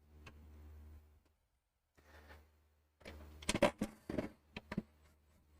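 A screw being backed out of a wooden workbench with a power driver: a faint, brief motor whir near the start, then a cluster of sharp clicks and knocks about three to five seconds in.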